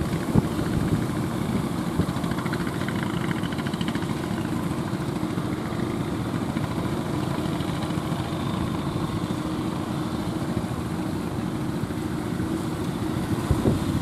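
Engine of a small motorised outrigger fishing boat running steadily as it pushes out through the surf.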